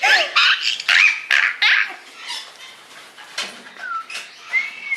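Parrot calling: a rapid run of harsh squawks in the first two seconds, then scattered quieter calls, and a clear whistled note near the end.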